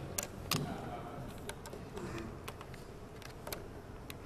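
Scattered sharp clicks and light knocks of a laptop being handled and its display cable plugged in, over a steady low room hum.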